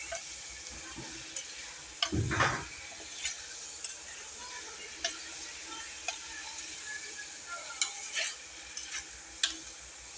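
Chicken adobo sizzling in a stainless steel pan while a metal spoon stirs it, clinking and scraping against the pan now and then. The loudest scrape comes a little over two seconds in.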